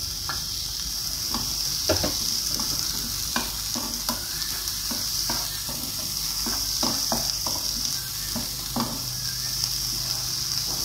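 Chopped onion, capsicum and sweet corn sizzling in oil in a frying pan while a spatula scrapes and knocks against the pan in irregular strokes as the vegetables are stirred.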